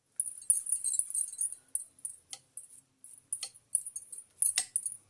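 Bangles jingling on the wrists as hands roll balls of potato-poha dough, a steady high jingle with several sharp clicks.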